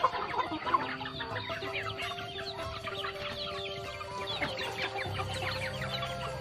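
Chickens clucking and peeping, many short calls overlapping, with a long steady held tone underneath for several seconds in the middle.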